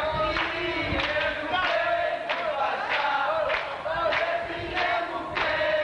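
A group of people singing and shouting together, with rhythmic hand-clapping keeping a beat about every half second.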